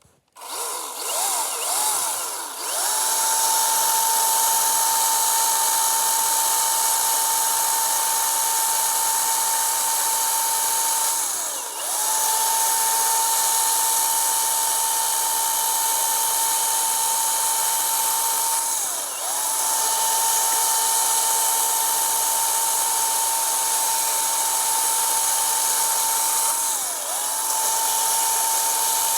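Milwaukee M18 cordless top-handle chainsaw with a 14-inch bar, its electric motor spinning up and then running at full speed with a steady high whine as it cuts a log. The motor's pitch sags briefly and recovers three times as it loads in the cut.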